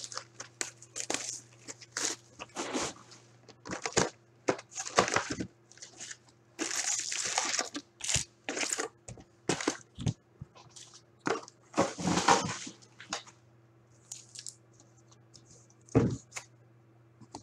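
Sports card box and pack wrappers being torn open and crumpled by hand: a run of irregular tearing and crinkling rustles that thins out after about thirteen seconds, over a faint steady hum.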